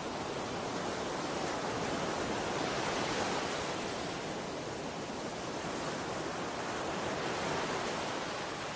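Steady rushing noise, swelling slightly about three seconds in and again near the end.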